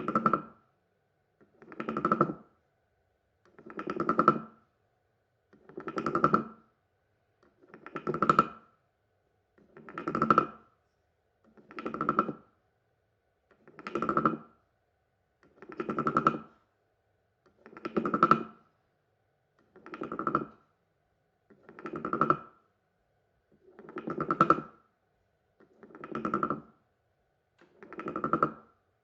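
Carved wooden frog guiro croaking: a stick is drawn along its ridged back, making a rasp of quick clicks. About fifteen croaks come evenly, one every two seconds, each swelling louder toward its end.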